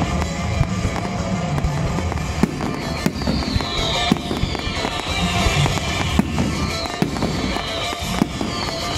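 Fireworks display: many sharp bangs and crackles going off one after another, over loud music played along with the show.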